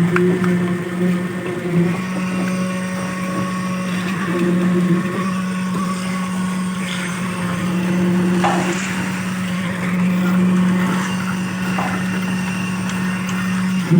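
A machine's motor running steadily with a constant hum, with a few light knocks and scrapes over it.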